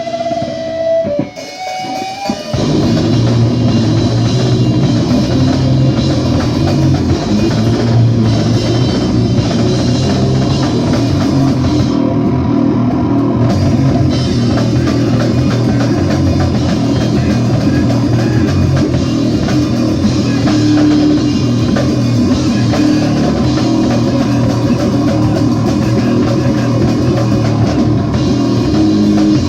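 A rock band playing live: a couple of held guitar notes, then drums, bass and guitar come in loud together about two and a half seconds in and keep playing.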